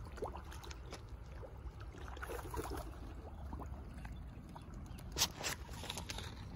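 Water lapping and trickling at the edge of a koi pond, over a steady low rumble, with a sharp knock about five seconds in.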